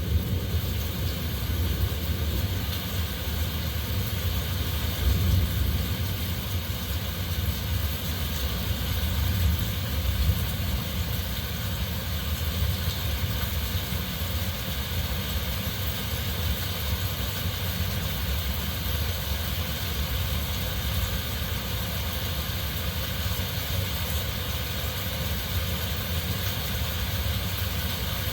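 Heavy rain falling with wind: a steady hiss over a deep, constant low rumble.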